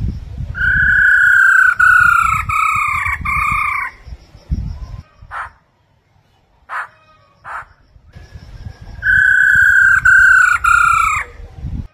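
Black-throated laughingthrush singing: two phrases of four loud, clear, slightly falling whistled notes, the first starting just after the beginning and the second about nine seconds in, with a few short calls in between. A low rumble runs beneath the notes.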